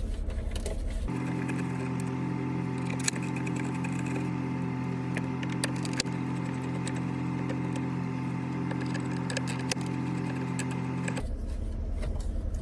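A steady, even electric hum that starts abruptly about a second in and cuts off near the end, with scattered small clicks and taps of plastic parts being handled.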